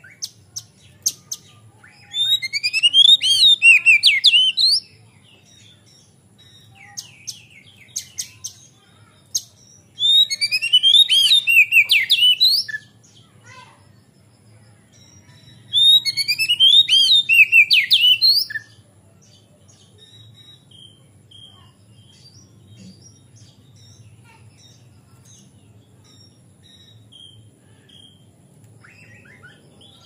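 Male oriental magpie-robin (kacer) singing: three loud phrases of fast rising and falling notes, each about three seconds long, with short sharp calls between them. After about 19 seconds only faint scattered notes remain.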